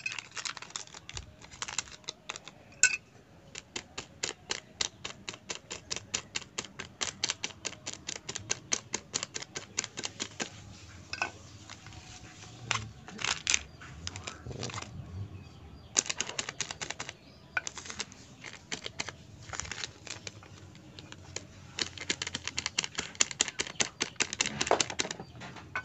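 A medicine bolus tablet being crushed to powder by hand: quick, even tapping, several strikes a second, that turns slower and more scattered midway and quickens again near the end.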